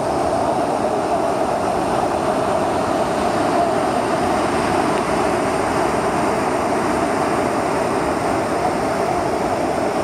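Mountain stream rushing over rocks and small rapids: a steady, even rush of water.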